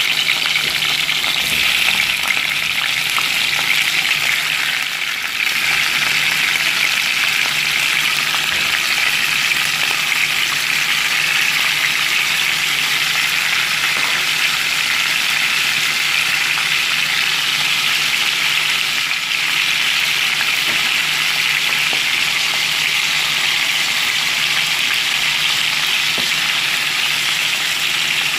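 Skinless chicken pieces sizzling in hot oil in a pot as they begin to sauté: a steady frying hiss.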